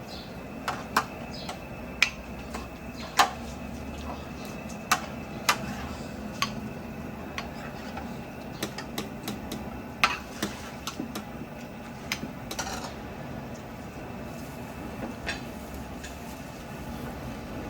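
Metal utensils and dishes clinking and clattering in irregular sharp knocks, a dozen or so, over a steady low hum.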